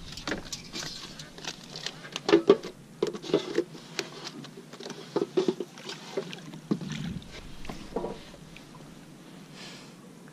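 Irregular knocks, taps and rattles of gear being handled in a small boat, among them a plastic mesh fish basket, with the loudest knocks about two and a half seconds in and things going quieter near the end.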